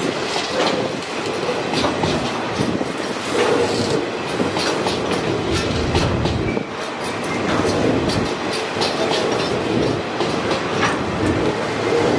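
Container flat wagons of a freight train rolling past: a steady noise of wheels on rail with irregular clicks and clacks as the wheels cross rail joints.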